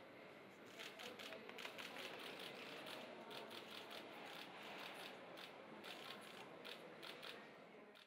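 Camera shutters clicking fast and irregularly from several press cameras, over faint room noise.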